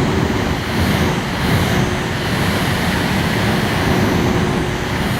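Loud, steady rushing noise like moving air, with a faint steady hum underneath.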